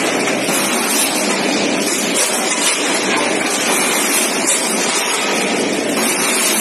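Automatic weighing and packing line for frozen chicken pieces running: steady, loud machine noise without a clear beat.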